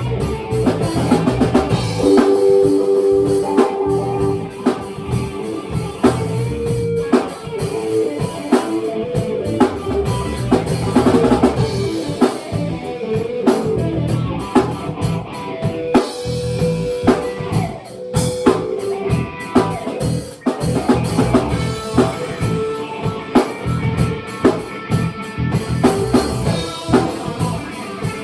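Live band jam: a drum kit keeps a steady beat of kick and rim hits under sustained electric guitar notes.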